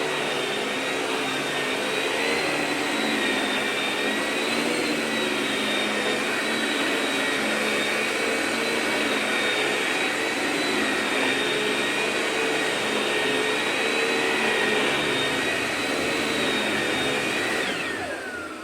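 Vacuum cleaner running steadily, a loud rushing noise with a high motor whine that wavers slightly in pitch. Near the end it is switched off and the whine falls away as the motor spins down.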